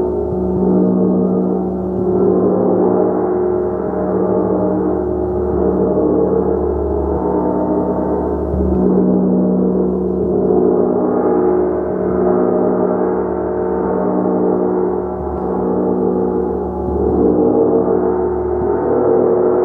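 A large gong played continuously in a meditative sound bath, a dense wash of many overtones swelling and ebbing every couple of seconds.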